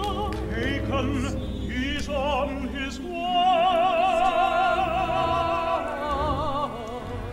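Operatic voice singing with wide vibrato over instrumental accompaniment, holding a long, louder note about three seconds in.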